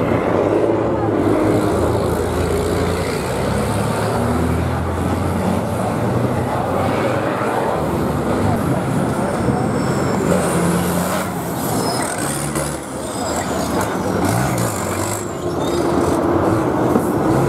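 Tatra Dakar rally truck engines running on the track, the engine note rising and falling as the trucks accelerate and slow.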